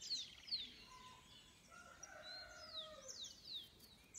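Faint outdoor birdsong: small birds repeat short, high, falling chirps, with a quick trill near the start. About two seconds in, a rooster crows in the distance for roughly a second.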